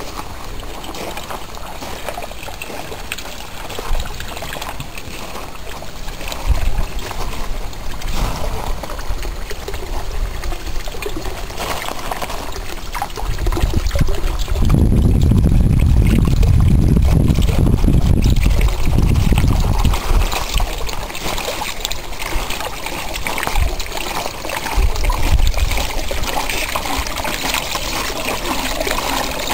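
Water trickling and pouring from a pipe outlet into the plastic-cup buckets of a small homemade garden-pond water wheel, with a louder low rumble for several seconds around the middle.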